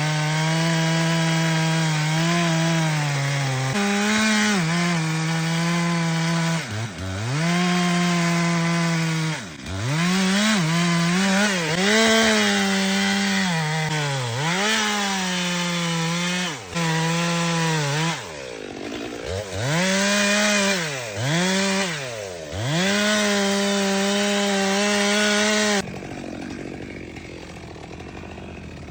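Two-stroke chainsaw running at high revs while cutting wood, its engine pitch dropping and climbing back again and again. It cuts off suddenly near the end, leaving a quieter steady noise.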